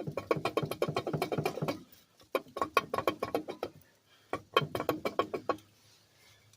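Hand ratchet wrench clicking quickly as a nut is backed off, in three runs of one to two seconds each.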